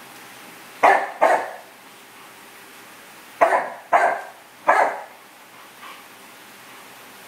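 Chow chow barking five times in two groups: two quick barks about a second in, then three more a couple of seconds later.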